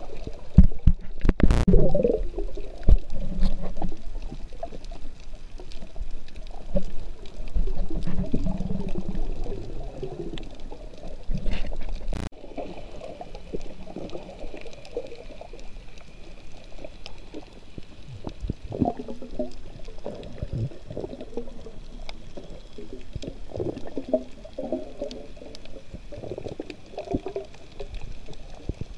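Muffled underwater sound picked up through a camera's waterproof housing: water gurgling and sloshing around the submerged camera, with a couple of knocks about a second in and a sharp click near the middle.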